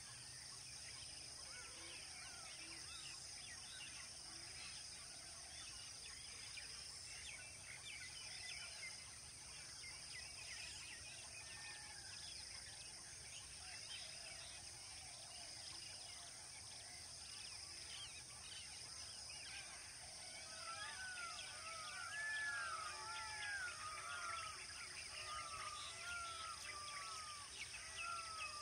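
Wildlife ambience: a steady high-pitched drone under scattered bird chirps. About two-thirds of the way in, a run of repeated rising-and-falling animal calls joins, several overlapping, and grows louder toward the end.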